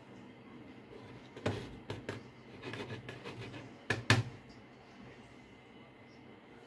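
A few sharp knocks and clicks of handling on a workbench, the loudest a close pair about four seconds in, over a faint steady hum.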